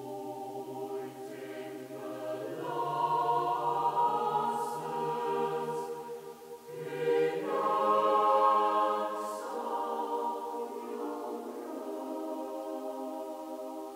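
Slow, meditative background music of sustained, choir-like held chords, changing chord twice and swelling in loudness each time.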